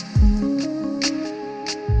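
Music playing: deep held bass notes with a heavy low attack just after the start and again near the end, and sharp ticks over the top.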